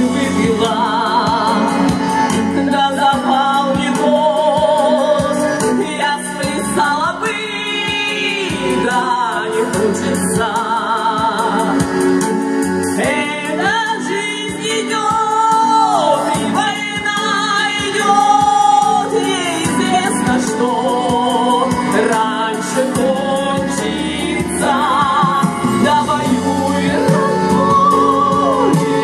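A woman singing a song into a microphone, amplified through a PA speaker over a recorded backing track; her long held notes carry a wide vibrato.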